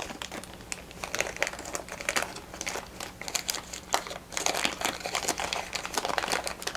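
Thin plastic bag crinkling as hands squeeze and slide a small electronics module out of it: a continuous, irregular run of quick crackles and rustles.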